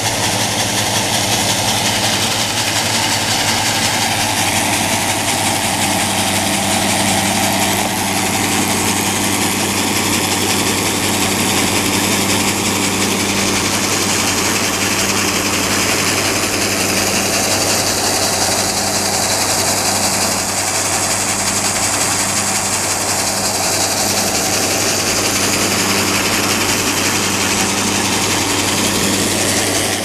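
Engine-driven grain auger running steadily, carrying shelled corn up into a grain bin, with a constant low hum.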